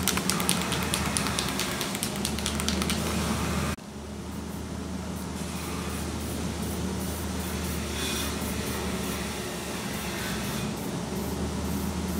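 Aerosol spray paint can shaken hard, its mixing ball rattling rapidly, then after an abrupt cut, short hisses of spray paint. A steady hum from a shop fan runs underneath.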